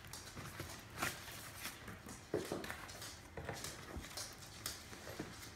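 Small bag and papers being handled: soft rustling with scattered light clicks and taps, as a sheet is pulled out of the bag.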